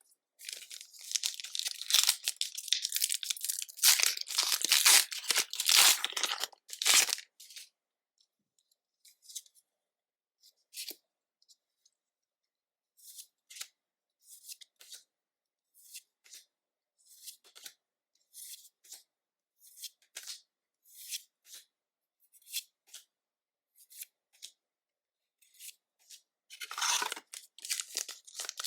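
Foil booster-pack wrapper being torn open and crinkled for the first several seconds. Then a long run of short, soft ticks as the trading cards are slid and flipped one by one, and crinkling of foil wrapper again near the end.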